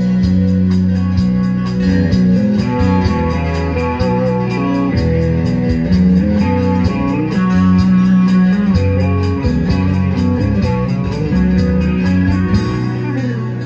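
Live country-rock band playing a guitar-led instrumental passage with no singing: a lead guitar melody over acoustic guitar, bass and drums keeping a steady beat.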